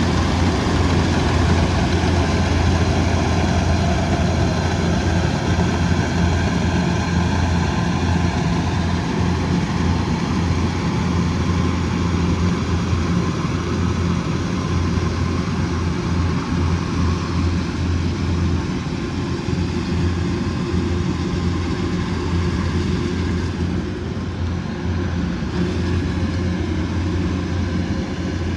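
Kubota DC108X combine harvester's diesel engine running steadily with a deep, even hum, becoming slightly quieter about three-quarters of the way through.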